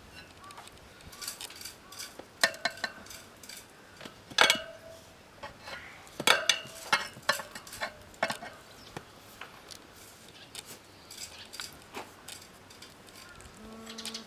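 Steel tyre levers clinking and scraping against a spoked motorcycle wheel rim as the knobby tyre's bead is levered over the rim edge: irregular sharp metallic clinks, some with a brief ring, the loudest about four and six seconds in.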